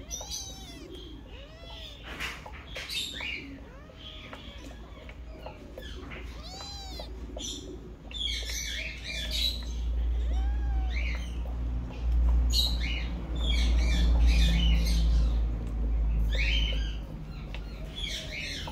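Kittens mewing in short, thin cries that rise and fall, one after another, mixed with high chirping. From about eight seconds in, a low rumbling and rustling close to the microphone takes over as the loudest sound for most of the rest, then drops away near the end.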